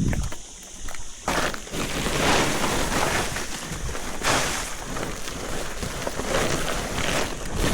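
Rustling and crackling of cut callistemon branches and leaves being handled, coming in irregular surges from about a second in.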